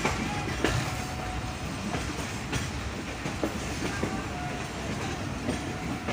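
Passenger train running on the track: a steady rumble of the cars with sharp wheel clicks over the rail joints scattered through it.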